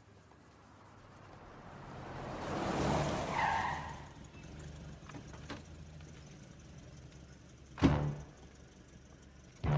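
A vintage car drives up and stops with a brief squeal, then its engine idles low. About eight seconds in, a car door slams.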